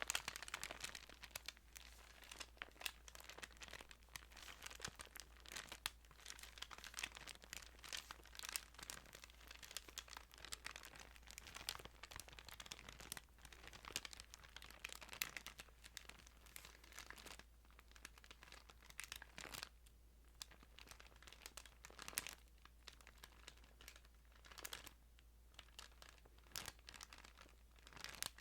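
Thin Bible pages being handled close to the microphone: soft, irregular paper crinkling and rustling.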